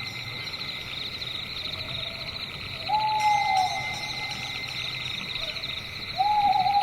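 An owl calls twice, about three seconds apart. Each call is a single hoot about a second long that rises slightly and then falls away. Behind it runs a constant, high, pulsing chorus of night insects.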